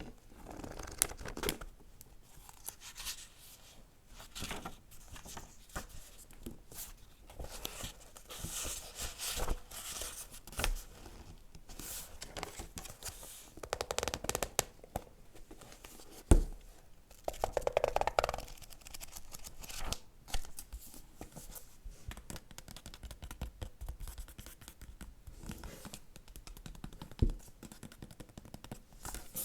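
Close-miked ASMR book sounds: paper pages rustling, swishing and being scratched, with scattered light taps and clicks and several longer swishes about a third and halfway through.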